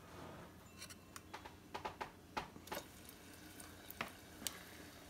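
Metal spoon and butter knife clicking and scraping irregularly against a ceramic mixing bowl as hush puppy batter is scooped out, over a faint steady sizzle of hot oil frying.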